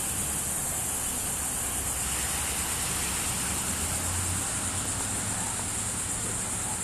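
Steady outdoor background noise: a constant high-pitched hiss over a low rumble, with no distinct events.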